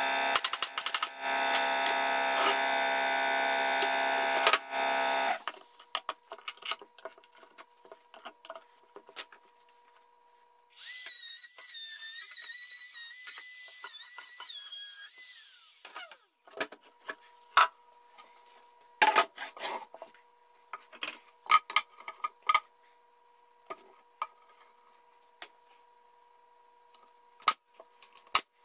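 Woodworking tools on a bench. A loud, steady machine drone cuts off about five seconds in. A handheld power tool then gives a high whine for about five seconds near the middle, and sharp clicks and knocks from a pneumatic stapler and wood being handled are scattered through the rest.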